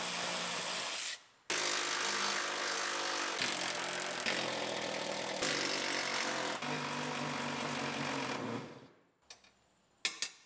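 Cordless ratchet running out the rear-seat bracket bolts: a short run of about a second and a half, a brief pause, then a long run of about seven seconds whose motor pitch shifts a few times before it stops.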